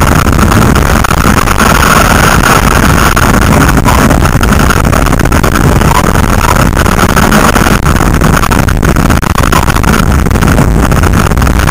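Race car's engine running hard under load, heard from inside the cabin, very loud and steady, with the rush of the car over the loose dirt course mixed in.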